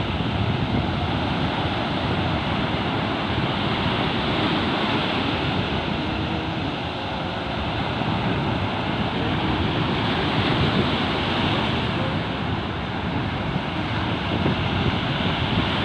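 Wind rushing over the microphone, mixed with the steady noise of sea surf, swelling and easing slowly.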